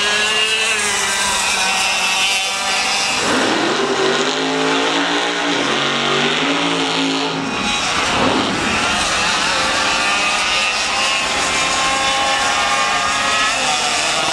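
Several two-stroke racing kart engines running at high revs, their whine rising and falling in pitch as the karts accelerate and slow through the corners. From about 3 to 7 seconds a nearer engine stands out, louder and lower in pitch.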